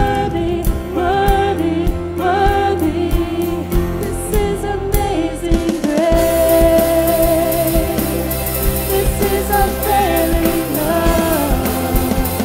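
Live church worship band music: a sung melody over the band with a steady drum beat. Cymbals come in about halfway through.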